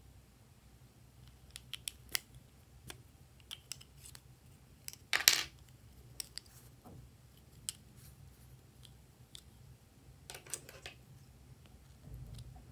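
Sharp clicks and snaps of plastic-and-metal lipstick cases being uncapped and handled, with one louder rasping snap about five seconds in. Near the end come the clicks of scissor blades.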